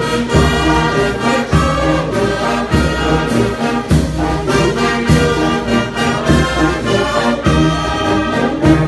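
Church brass band playing a hymn: trombones and trumpets hold sustained chords over a steady low beat, roughly one stroke a second.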